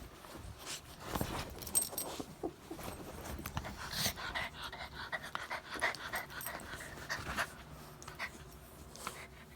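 A dog panting in quick repeated breaths, with short clicks and rustles around it.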